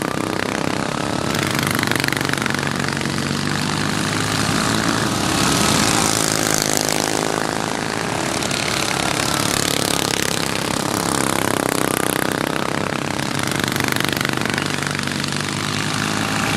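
Several racing lawn mowers with twin-cylinder flathead engines running hard together. Their engine noise swells and fades as the machines come round.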